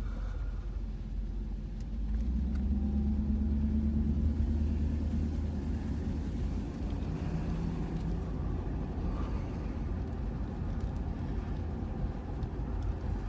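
A 1991 Mercedes-Benz R129 SL driving, with steady engine and road rumble heard from inside the cabin with the top up. It gets louder about two seconds in as the car picks up speed.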